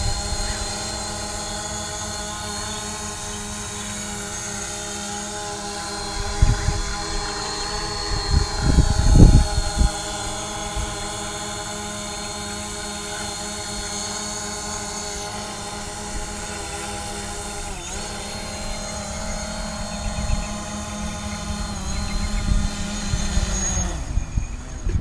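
Quadcopter drone's propellers and motors whining steadily while it hovers low. There are a few low rumbles about a quarter and a third of the way in, and the whine stops just before the end.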